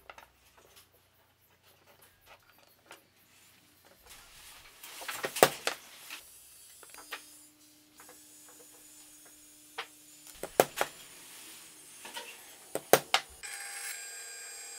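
Scattered knocks and sharp clicks of a plywood block and hand tools handled on a wooden workbench, then a drill press motor starts near the end and runs with a steady hum.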